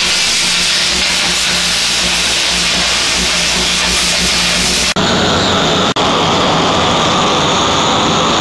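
Arc gouging on heavy steel plate: a loud, steady crackling hiss. About five seconds in it cuts to a gas heating torch burning with a steady rushing hiss as it heats the steel plate so the plate can be shaped to the tub structure.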